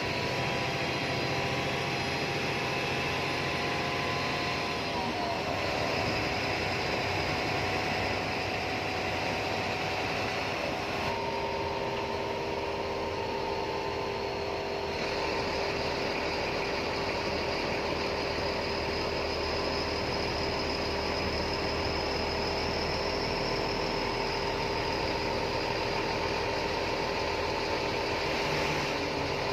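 Bus engine and road noise, steady throughout, with whining tones that slide down in pitch about five seconds in and shift again a little later.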